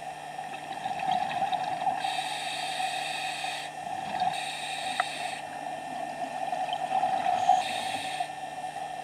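Scuba diver breathing through a regulator underwater: three bursts of exhaled bubbles, about a second each, over a steady hum.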